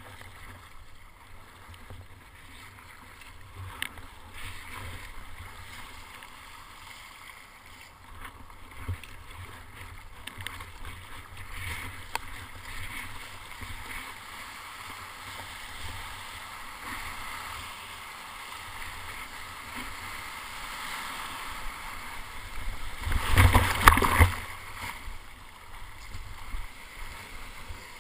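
Water sloshing against a plastic sit-on-top kayak, with paddle splashes now and then as it is paddled through the chop. Near the end a loud rush of breaking surf, about two seconds long, as a wave breaks around the kayak.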